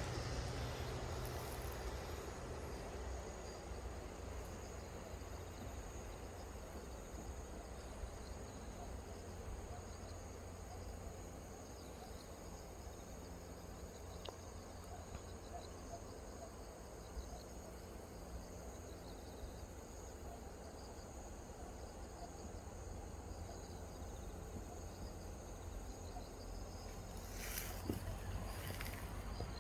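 Insects chirring steadily in a high, even tone over a low background rumble, with a couple of brief rustles near the end.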